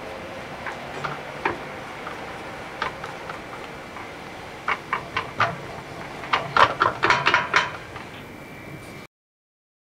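Silicone spatula pressing and scraping thick choux dough in a pot: scattered soft wet clicks and squelches that come faster and louder from about five seconds in, then the sound cuts off suddenly near the end.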